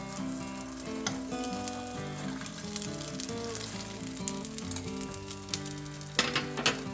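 Food sizzling as it fries in a pan, with small clicks and crackles, over background music.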